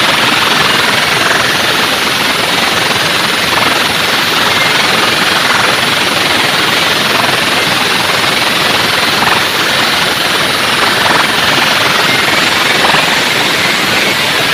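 Loud, steady, distorted roar from a giant outdoor DJ sound-system wall, overloading the microphone into an even noisy wash in which no tune or beat comes through.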